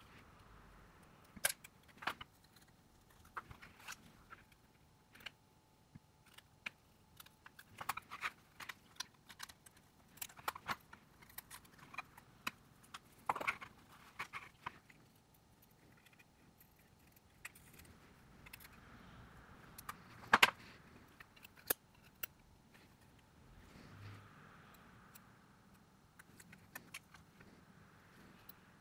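Irregular small clicks, taps and light metallic clinks from tools and small phone parts being handled during a smartphone teardown, with a sharp louder click about twenty seconds in.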